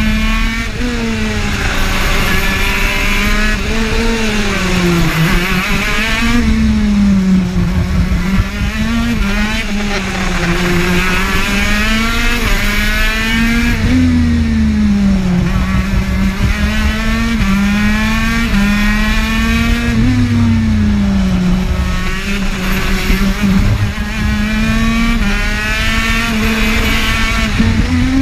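TM KZ10B 125 cc two-stroke shifter kart engine at racing speed, heard from the driver's seat: its high-revving note keeps climbing and then dropping sharply, several times over, as the kart accelerates and slows for corners.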